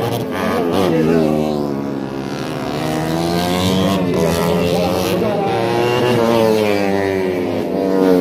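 Tuned Honda Sonic 150 race motorcycle engines, four-stroke singles, revving, their pitch rising and falling several times.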